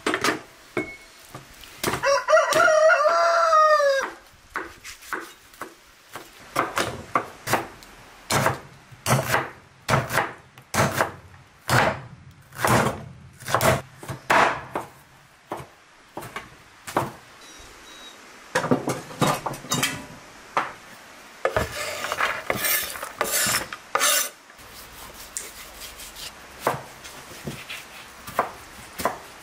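A rooster crows once about two seconds in, a single falling call lasting about two seconds. Then a meat cleaver chops again and again on a wooden board, about two blows a second, cutting up raw lamb.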